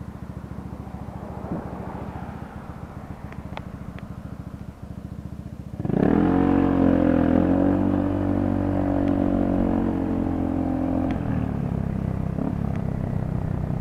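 The rider's own motorcycle engine running low and quiet, then revving up sharply about six seconds in as the bike accelerates, holding a steady pitch under throttle, and easing back off a few seconds before the end.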